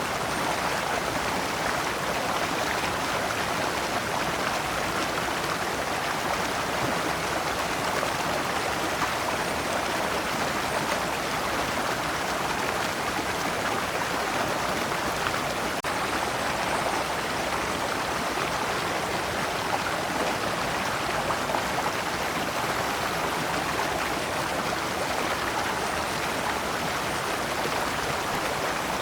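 Shallow rocky stream running over large stones in small cascades: a steady, even rush of water.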